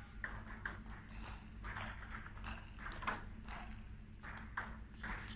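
Table tennis rally: the celluloid-type ball clicking sharply off the players' bats and the table in quick alternation, about two to three clicks a second.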